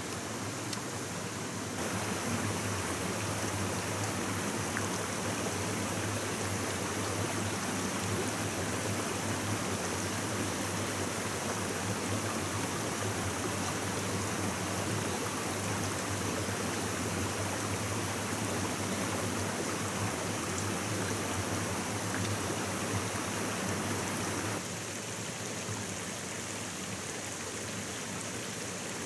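Running water of a stream rushing steadily, stepping a little louder about two seconds in and quieter again near the end.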